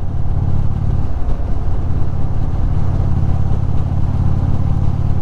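Indian Super Chief Limited's V-twin engine running steadily under way, with a constant wind rush over it.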